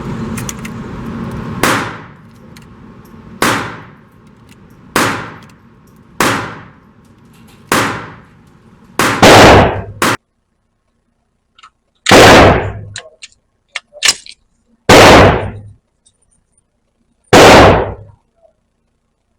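Pistol shots echoing in an indoor range: five fainter shots about every second and a half, then five much louder 10mm shots at uneven gaps of one to three seconds in the second half, from a Hi-Point JXP pistol firing hand-loaded rounds.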